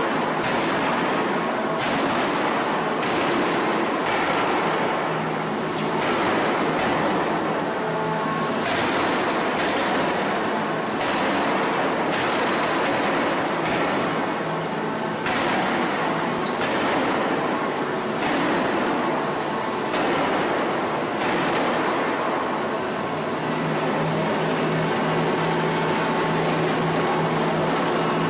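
Heavy arch-frame forging hammer striking a red-hot steel billet on the anvil, sharp blows roughly once a second over a continuous machine din. The blows thin out after about 22 seconds, leaving a steady hum.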